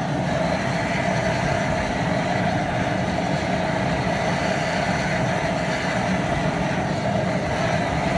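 High-pressure propane burner under a large boil pot running steadily, with a constant rushing noise and a low rumble, heating the water toward a boil.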